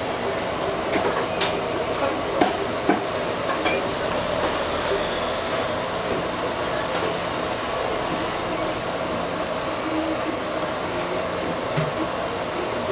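Steady background din of an eatery, with a few sharp clinks of chopsticks against the dish in the first three seconds.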